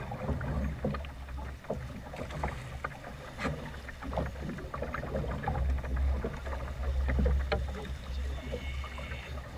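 Choppy waves slapping and splashing against a small boat's hull at irregular moments, with wind buffeting the microphone as a heavy low rumble.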